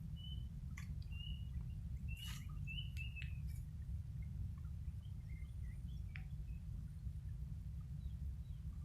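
Short bird chirps, a handful in the first few seconds and a few more later, with several sharp clicks among them, over a steady low rumble.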